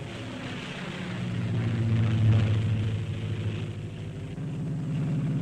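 Several propeller aircraft droning overhead, their engines making a low steady hum that swells to a peak about two seconds in and then eases off, heard on an old 1930s film soundtrack.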